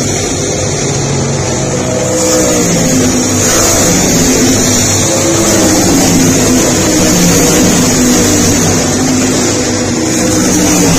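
Several race car engines running at once, their pitches rising and falling as the cars accelerate and back off around the track.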